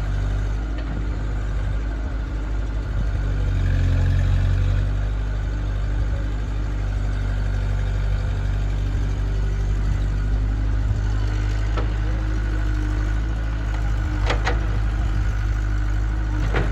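Heavy diesel engine running steadily, rising in level for a couple of seconds about three seconds in. Near the end there are a few sharp knocks.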